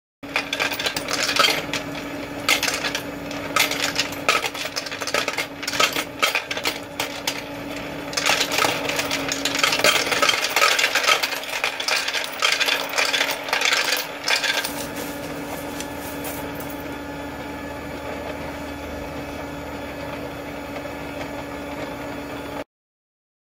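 Magnif motorized coin sorter running, coins clattering and clicking through it as they are fed in and sorted into the tubes, over a steady motor hum. After about fifteen seconds the clatter stops and the motor runs on empty, then cuts off suddenly near the end.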